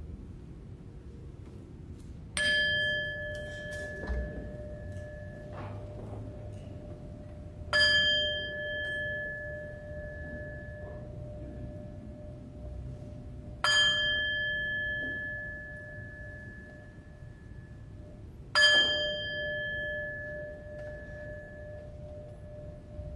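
A bell struck four times, about five to six seconds apart, each stroke ringing with several clear tones that fade over a few seconds: the bell announcing the start of Mass as the priest enters.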